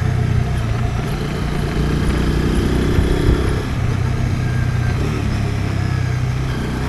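Motorcycle engine running steadily as the bike is ridden along the road.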